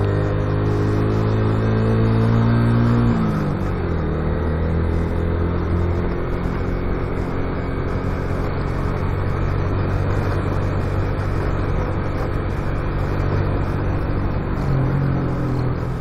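Motorcycle engine running under way, with road and wind noise. Its pitch climbs slightly, then falls about three seconds in as the throttle eases or a gear changes, and it runs steadily after that.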